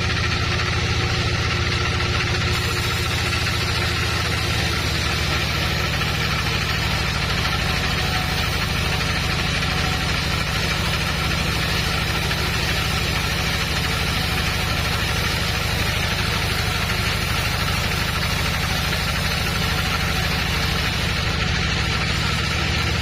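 Sawmill machinery running steadily with a constant low hum and a fast even pulsing, without a change in speed.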